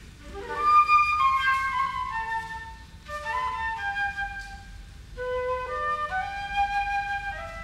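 Slow instrumental melody of clear held notes moving up and down in steps, with short breaks between phrases about three and five seconds in.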